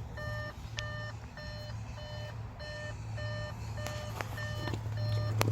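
Electronic warning beep repeating about twice a second over a steady low hum, with a few sharp clicks, the loudest near the end.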